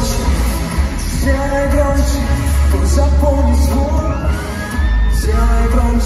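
Live pop song played loud through an arena sound system: a male lead singer over a band with heavy bass, recorded from within the crowd.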